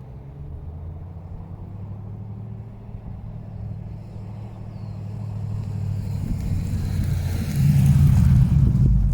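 The Ford BA Falcon XR8's Boss 260 V8 running through Pacemaker 4-into-1 headers, hi-flow cats and an Xforce twin 2½-inch exhaust: a low, steady exhaust rumble that grows louder over the last few seconds and is loudest near the end.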